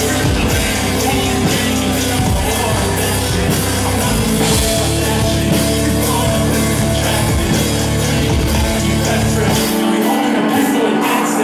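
Loud live rock music through a club PA, with a performer singing into a handheld microphone. The heavy bass drops out suddenly near the end.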